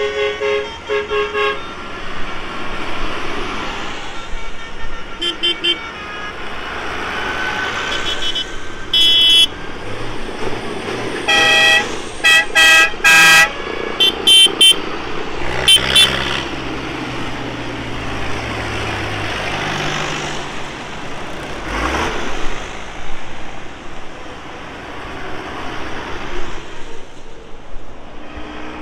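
A procession of tractors driving past, engines running, with their horns tooting again and again in short pitched blasts. The blasts come in quick groups through the first half, the loudest a run of several near the middle, then die away as the tractors keep passing.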